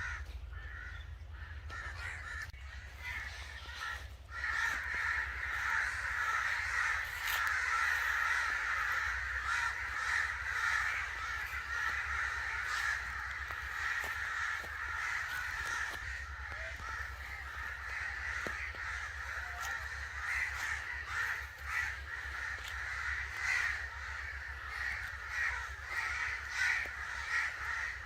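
Many crows cawing at once in a dense, overlapping chorus that thickens about four seconds in, over a low steady hum.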